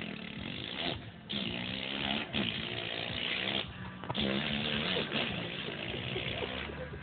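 A person imitating a four-stroke dirt bike engine with his voice, the pitch stepping up and down as if revving and shifting gears. The engine noise breaks off briefly about a second in and again near four seconds.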